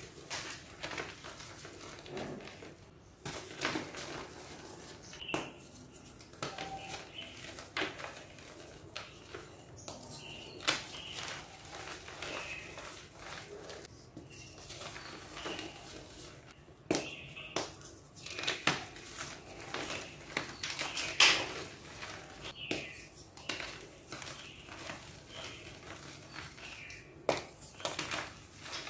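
Hands crumbling and squeezing dusty, reformed gym chalk: an irregular run of crunches and crackles with sharp snaps as chunks break apart, over the soft crunch of powder pressed in the fists. One snap about two-thirds of the way through is the loudest.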